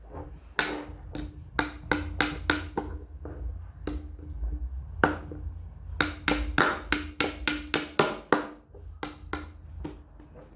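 Small hammer tapping repeatedly, each strike ringing briefly. The taps come in quick runs of about four or five a second, with a slower, sparser patch in the middle.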